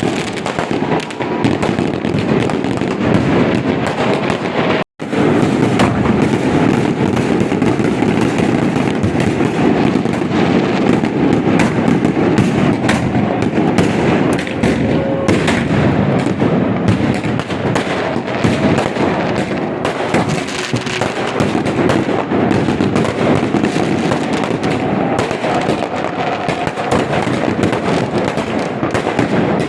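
Fireworks and firecrackers going off in a dense, continuous crackle of many overlapping pops and bangs. The sound drops out completely for an instant about five seconds in.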